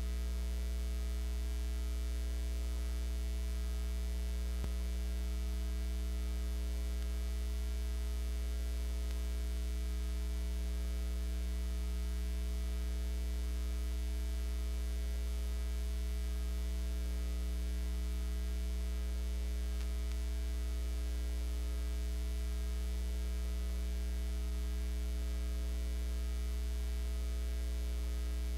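Steady electrical mains hum, a low buzz with a ladder of overtones, over faint hiss, unchanging throughout; no sound from the filmed scene is heard.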